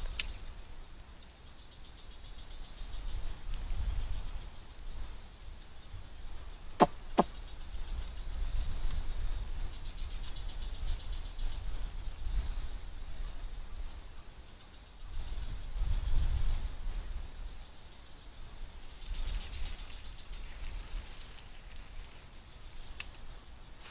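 Steady high-pitched insect drone, with low rumbles coming and going and two sharp clicks about seven seconds in.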